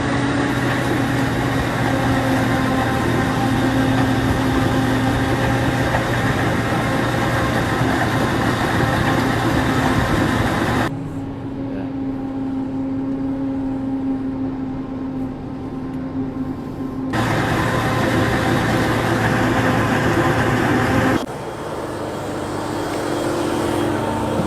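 Large combine harvester running: a loud, steady engine and machinery drone with a level hum. The sound changes suddenly three times, turning duller for a few seconds and back again.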